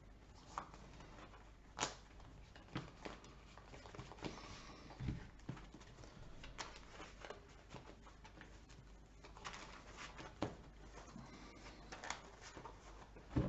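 Faint, scattered taps and soft rustles of Magic: The Gathering cards being handled and set down on a table, about a dozen small clicks spread unevenly, with one duller knock about five seconds in.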